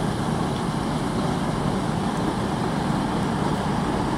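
Class 221 Super Voyager diesel-electric multiple unit standing at the platform, its underfloor diesel engines running steadily at idle with a constant low hum.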